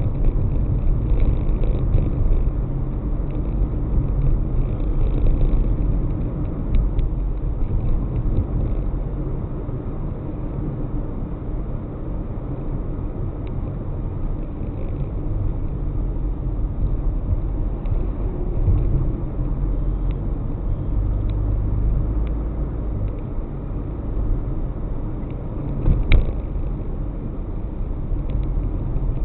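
Car driving on city streets: steady low rumble of engine and tyres on the road, with one short sharp knock near the end.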